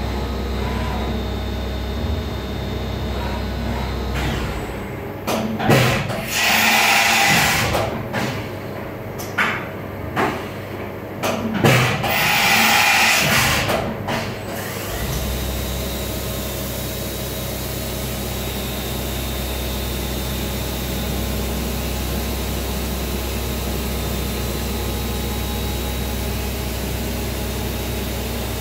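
Grawostar CNC Master milling machine running with a steady hum. About five seconds in the hum drops away for about ten seconds, during which there are two loud hisses a few seconds apart, each about two seconds long, with clunks and a short falling whine before each. The steady running resumes about fifteen seconds in.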